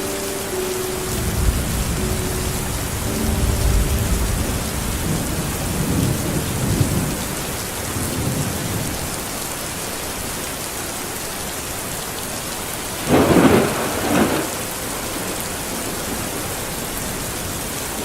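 Steady rain falling, with thunder rolling low through the first half and a sharper, louder crack of thunder in two close bursts about two-thirds of the way through.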